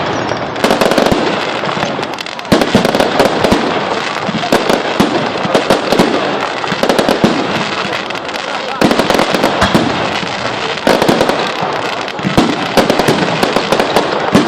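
A fireworks display: continuous crackling and popping, with new, louder salvos of bangs breaking out about a second in, at two and a half seconds, and again around nine and eleven seconds.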